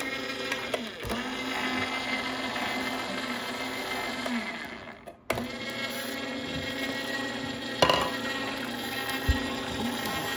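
Sharp Healsio juicepresso slow juicer running steadily with a constant motor hum as its screw presses peeled mandarins into juice. About halfway the sound fades and then comes back abruptly, and a sharp knock stands out later on.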